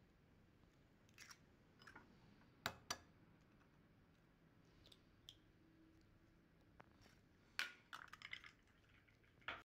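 Faint taps and crackles of eggs being cracked and dropped into a glass mixing bowl: two sharp taps about three seconds in, and a cluster of crackling clicks near the end.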